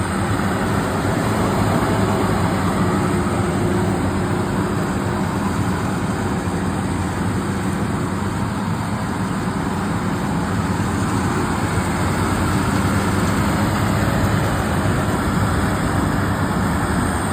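A harvesting machine's engine running steadily under load, with a continuous low drone and a dense mechanical clatter over it.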